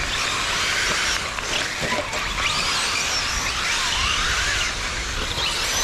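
1/8-scale electric RC buggies racing, their high-pitched electric motors whining up and down with the throttle over a steady hiss.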